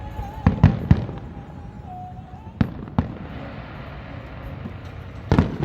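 Fireworks display bursting: three sharp booms in quick succession about half a second in, two more around the middle, and a louder pair near the end, over a steady low rumble.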